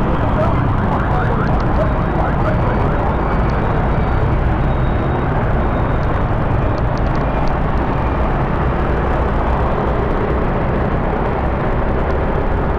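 Steady traffic noise of motorbikes and cars, heard from a moving motorbike, with a constant low rumble.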